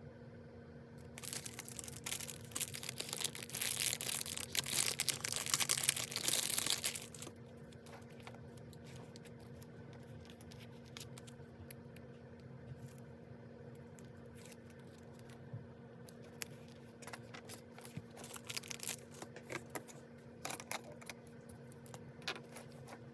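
Paper being handled at a planner: dense rustling and tearing for about six seconds, then scattered lighter rustles and taps.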